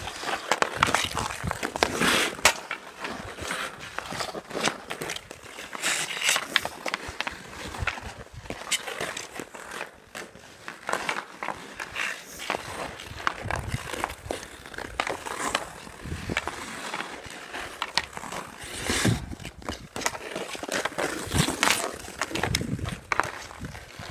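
Ice hockey skate blades scraping and carving over rough outdoor ice in irregular strokes, with sharp clicks of a hockey stick handling a puck.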